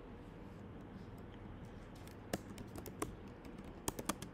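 Computer keyboard being typed on: quiet at first, then a handful of separate, sharp key clicks from about halfway through.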